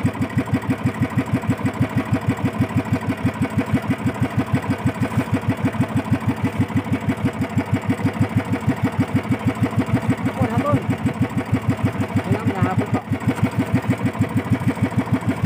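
Small engine of a motorized outrigger fishing boat running steadily with a rapid, even pulsing beat.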